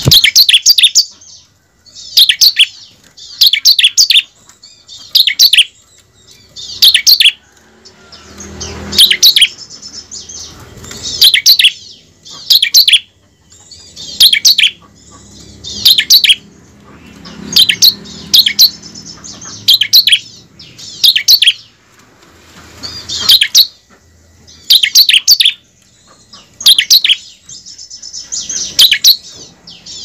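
Bar-winged prinia (ciblek) calling: short, loud bursts of sharp, high notes in quick series, repeated every one to two seconds.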